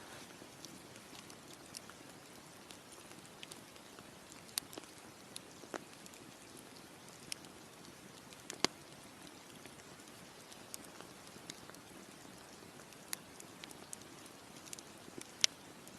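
Wood campfire crackling: a soft steady hiss with irregular sharp pops and snaps, two of them much louder than the rest.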